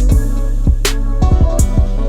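Background music with a steady beat: drums over a sustained bass line.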